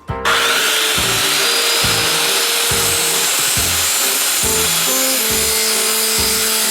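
Circular saw cutting through square wooden timber: a loud, steady cutting noise that starts abruptly just after the beginning, with background music beneath.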